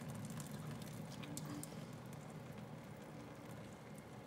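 Noodle cooking water being drained from a saucepan into a kitchen sink: a thin stream splashing faintly and steadily.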